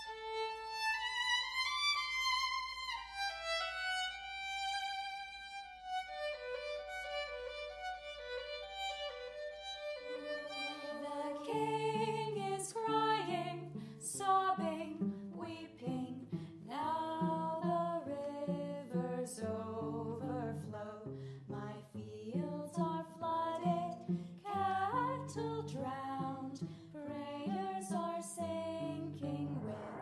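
Live string music: a solo violin melody, joined about ten seconds in by a lower accompaniment with sharply attacked notes.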